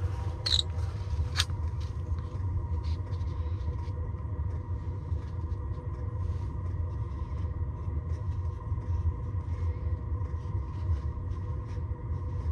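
Steady low mechanical hum with a faint constant whine from a heater running inside an ice-fishing tent. Light scattered plastic clicks as a small bait box is opened and handled.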